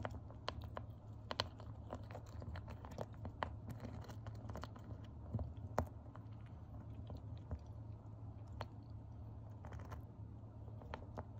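Dwarf hamster gnawing on a piece of almond: many tiny, irregular crunching clicks as its teeth bite into the nut.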